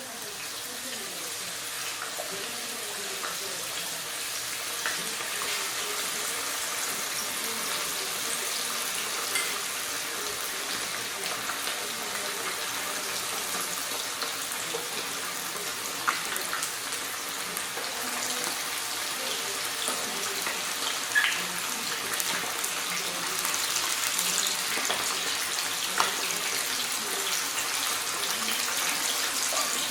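Chicken wings frying in hot oil: a steady sizzle that slowly grows louder, with a few sharp pops and crackles.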